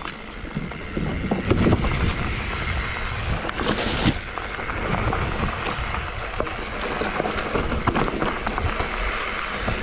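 Wind rushing over the microphone with a steady rumble, broken by frequent rattling knocks from a bike riding fast over rough enduro trail.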